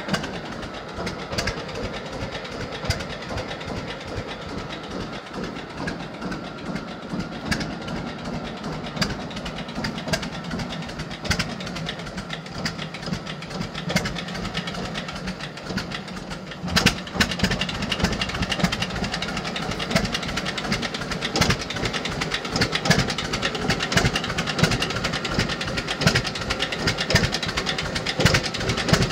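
John Deere Model D tractor's two-cylinder engine running with an even, rhythmic firing beat. It gets louder a little past halfway through.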